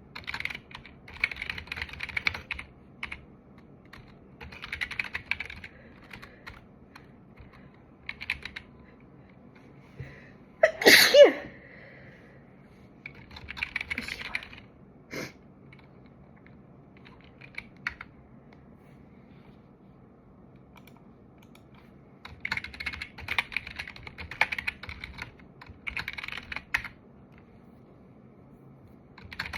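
Computer keyboard typing in several bursts of quick key clicks, with one loud sneeze about eleven seconds in, the loudest sound here.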